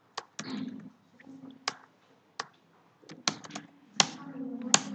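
Scattered clicks and keystrokes on a computer keyboard and mouse, about ten sharp separate clicks with the two loudest near the end.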